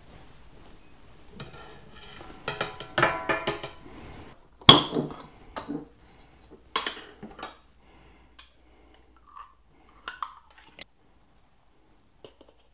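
Kitchenware clinking and knocking as apple puree is spooned from a jar into a stainless steel mixing bowl: a rattle of clinks in the first few seconds, one sharp loud knock about five seconds in, then scattered lighter taps.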